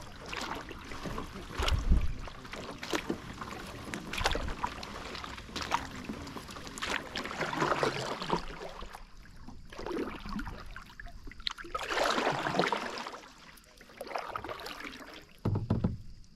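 Canoe paddle strokes: the blade swishing through calm water in swells every two seconds or so, with a few sharp knocks and low thumps in between.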